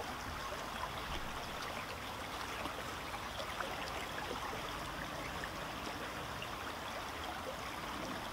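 A small stream flowing steadily.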